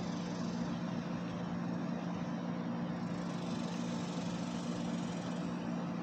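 A motor running steadily with a low, even hum that does not change.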